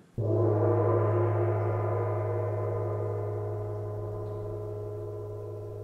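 A single stroke on a deep gong or similar large struck metal instrument, a low ringing note with many overtones that slowly fades away.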